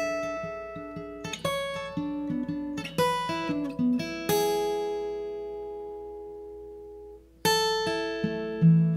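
Solo acoustic guitar playing an instrumental passage: picked notes and chords that ring and fade, then one chord left ringing for about three seconds before a fresh strum near the end.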